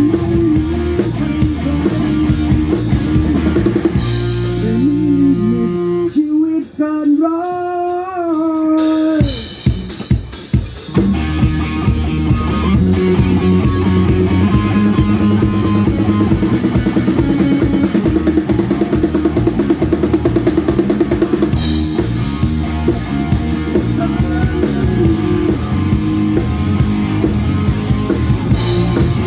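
Live rock band playing at a sound check: drum kit and electric guitar. About six seconds in, the full band drops back to a single held guitar note that bends and wavers, then the drums and band come back in about three seconds later.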